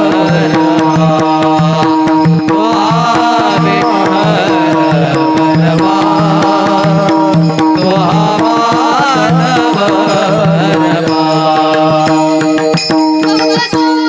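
Varkari kirtan music: a woman singing a long, ornamented melody over a sustained drone and pakhawaj drum. Brighter percussion strikes come in near the end.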